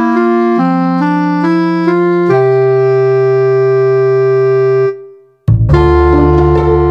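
Background music played on an electronic keyboard: short chords, then one long held chord that fades out to a moment of silence about five seconds in, before the music starts again, fuller.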